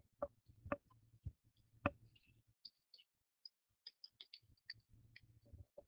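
Faint clicks and taps of a pen stylus against its writing surface as handwriting is written on screen: a few sharper clicks in the first two seconds, then a run of lighter ticks.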